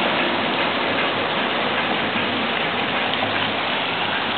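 A lake's spray fountain running, its jets falling back onto the water in a steady splashing.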